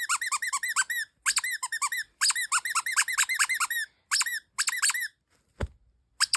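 Rapid runs of high-pitched squeaks, several a second in clusters, stopping about five seconds in. A single knock follows, then one last short squeak.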